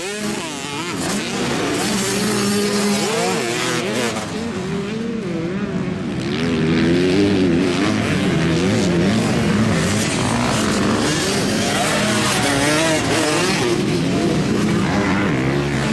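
Several motocross dirt bikes running on a dirt track, their engines revving up and down as riders throttle on and off through the jumps and turns, with more than one engine heard at once.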